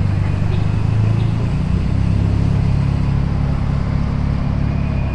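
An engine idling steadily, with a faint high, steady whine above it.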